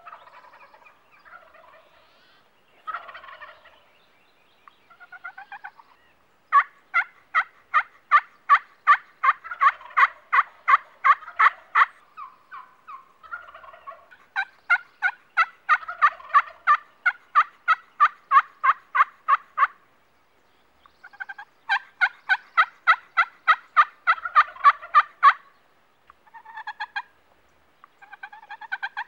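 Turkey yelping: three long runs of evenly spaced yelps, about three or four a second, each run lasting around five seconds. Softer, scattered calls come in between.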